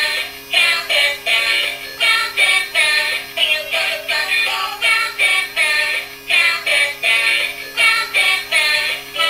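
Musical toy's electronic children's song: a high-pitched synthetic voice sings short phrases over a steady beat.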